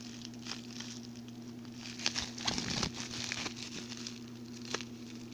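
Plastic figure packaging crinkling and clicking as it is handled, in scattered small crackles that cluster about two to three and a half seconds in.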